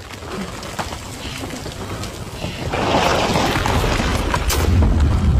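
Horror-film sound design: a dark, noisy rush that swells loudly about halfway through, with a deep rumble building beneath it near the end and a few faint clicks.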